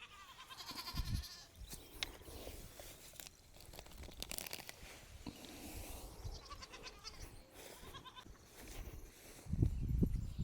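Goats bleating, one call at the start and another about six seconds in, with scattered light clicks and a low rumble near the end.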